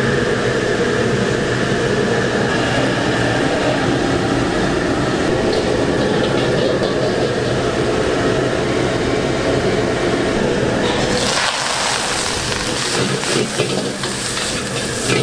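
Steady rushing, watery kitchen noise, like a large pot boiling hard on a gas burner. About eleven seconds in it changes to a brighter hiss.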